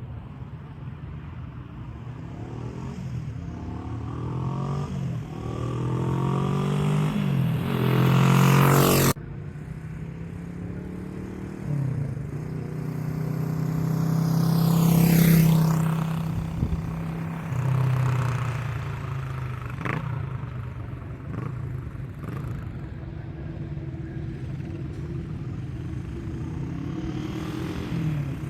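1972 Honda CB350's parallel-twin engine being ridden. It revs up over the first nine seconds, drops off suddenly, then swells to its loudest about halfway through as the bike passes close by, and runs on more quietly afterwards.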